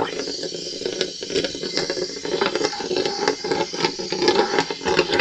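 Air and windshield washer fluid forced back out of a tractor tire through a release hose into a bucket of fluid: a steady hiss with a rapid crackle, as the tire's pressure is let down during fluid filling.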